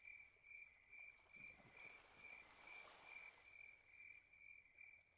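Near silence with a faint insect chirping steadily, a little over two high-pitched chirps a second.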